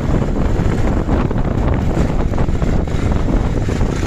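Wind buffeting the microphone, a steady loud rumble with hiss above it.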